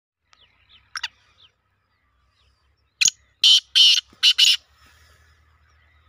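Male black francolin calling: a run of five loud, harsh notes starting about three seconds in and lasting about a second and a half. Before it, faint chirps of small birds.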